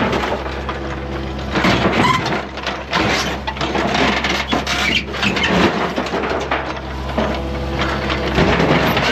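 Excavator tearing the hood off a car: sheet metal crunching, cracking and scraping in a dense run of impacts over the excavator's engine running low and steady.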